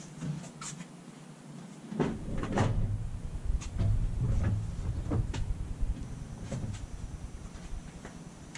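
Scattered clicks and knocks with a low rumble as a heater control valve and its cable are pushed and worked by hand, testing whether the valve will move fully open and closed.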